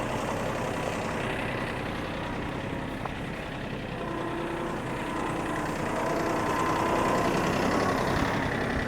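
Farm tractor engine running steadily, with a faint held tone joining about four seconds in.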